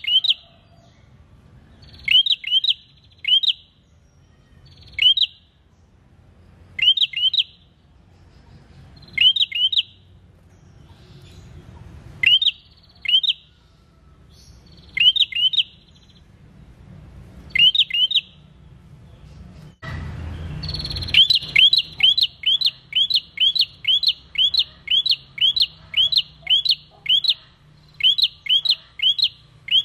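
Caged prenjak calling: sharp upward-sweeping notes in pairs and threes, a second or two apart. About two-thirds of the way through, after a short rush of noise, the notes run together into a fast unbroken series of about two or three a second.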